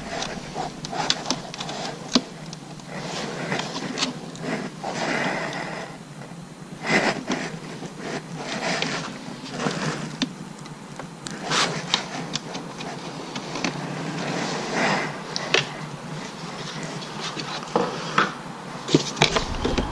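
Jacket fabric rubbing on a chest-mounted GoPro's microphone, a swishing that swells and fades in irregular waves, with small clicks and knocks as the generator's plastic side cover and wiring are handled.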